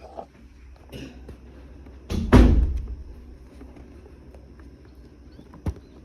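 A hard knock about two seconds in, ringing briefly, with a smaller knock before it and a single sharp click near the end.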